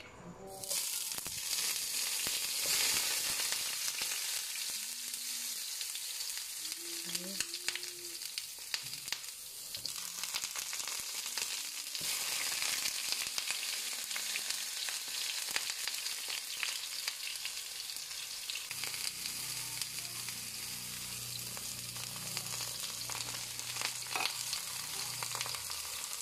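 Eggplant slices sizzling as they pan-fry in hot oil in a nonstick frying pan. The sizzle starts suddenly about half a second in, as the first slices go into the oil, and carries on steadily with small crackles while more slices are added.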